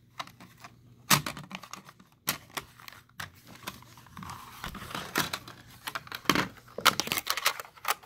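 Plastic smoke detector being handled and fitted back onto its mount: a string of irregular sharp plastic clicks and knocks with light rustling between them.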